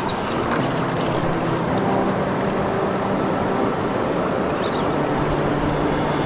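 Fast-flowing river water rushing steadily, an even wash of noise with no breaks.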